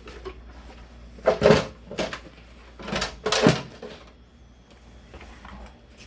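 Two short bursts of handling noise, knocks and rustles, about a second and a half in and again about three seconds in, with a few smaller clicks between, as the RC truck is handled and its parts moved.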